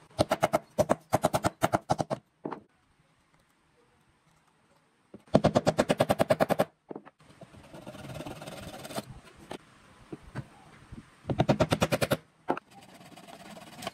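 Wooden mallet tapping small wooden pegs into drilled holes in a wooden clock face: three runs of quick, light strikes, about eight a second.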